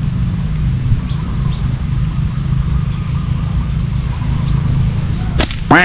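A vehicle engine running steadily with a low hum. Near the end there are two sharp, loud sounds in quick succession, the second sweeping quickly down in pitch.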